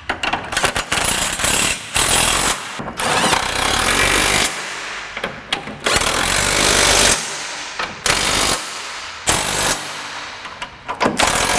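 An impact wrench running the K-member mounting bolts down in repeated bursts of a second or two, with short pauses between them. The bolts are only being snugged for a test fit, not torqued.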